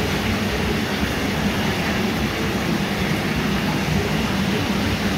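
SUM Premium Nerio 1085 corner whirlpool bath running its hydromassage jets: steady churning and bubbling of water over a low pump hum.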